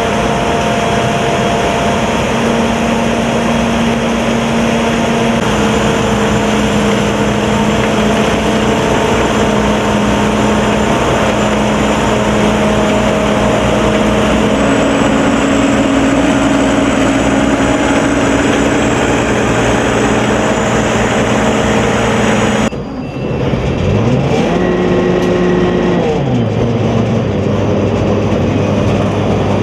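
Sakpattana corn combine harvester running, its engine and machinery making a loud, continuous drone with steady tones. About 23 seconds in the sound breaks off abruptly and comes back, with the engine pitch rising, holding for a couple of seconds, then falling back.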